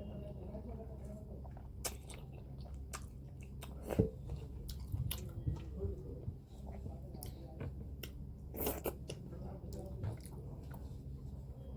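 Close-up sounds of a person eating: chewing with scattered wet smacking clicks, a few louder, over a steady low hum.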